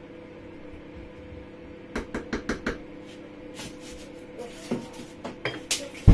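A wooden spoon knocking several times in quick succession on the rim of a metal cooking pot, then foil crinkling and a metal pot lid being set down with a thump near the end. A steady low hum runs underneath.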